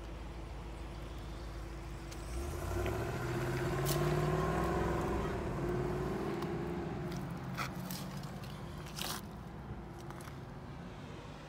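A motor vehicle's engine swells and rises in pitch about two seconds in, holds for a few seconds, then fades away over a steady low hum. Two sharp clicks come later.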